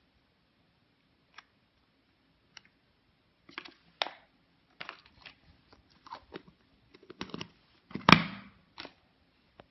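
Hands unwrapping and opening a surprise egg: a few isolated clicks, then a run of crinkling and crackling, with one sharp crack about eight seconds in, the loudest sound.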